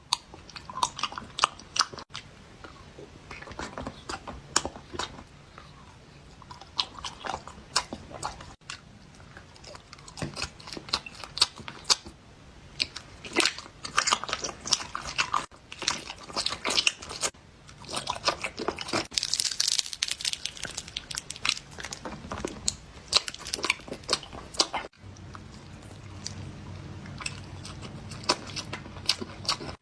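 Close-miked eating: crunchy bites and chewing, with dense, irregular crunches and wet chewing clicks.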